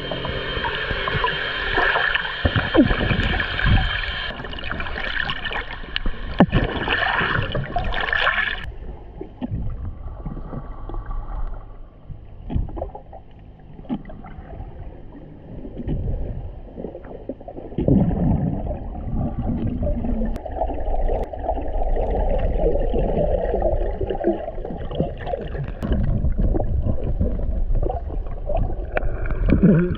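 Muffled underwater sound of water swishing and gurgling around a GoPro as a snorkeler swims with fins, with irregular dull knocks. About eight seconds in the sound suddenly turns duller.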